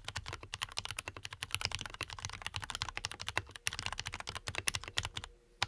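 Fast typing on a Leopold FC660MBT mechanical keyboard with lubed Cherry MX Black linear switches, many keystrokes a second. The typing stops about five seconds in, followed by a couple of single key presses near the end.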